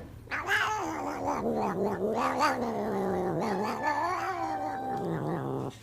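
A cat yowling in one long, drawn-out call of about five seconds, its pitch wavering up and down, cutting off suddenly near the end.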